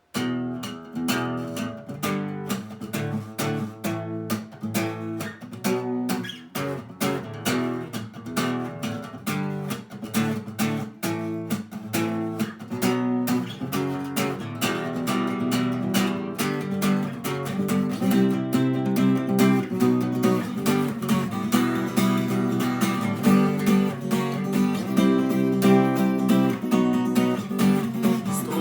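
Solo acoustic guitar playing a rhythmic strummed and picked intro, growing fuller and denser about halfway through.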